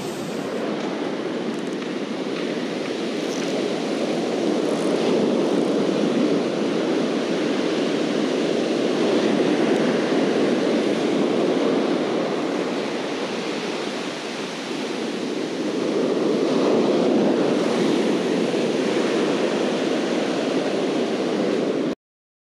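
Ocean surf breaking and washing up the beach, a steady rush that swells and eases. It cuts off suddenly near the end.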